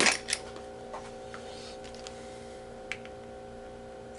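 Sharp clicks and taps of plastic casing parts being handled and pried apart on an Xbox 360 console: two loud clicks right at the start, then a few lighter ones spaced out. A steady low hum runs underneath.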